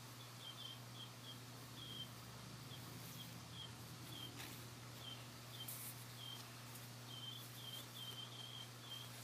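Faint short high chirps from a small animal, recurring at irregular spacing, a few to the second, over a low steady hum.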